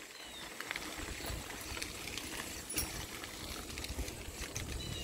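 Bicycle rolling on a gravel trail: steady crunch of tyres on loose stone with small clicks and rattles from the bike, and wind rumbling on the handlebar-mounted microphone.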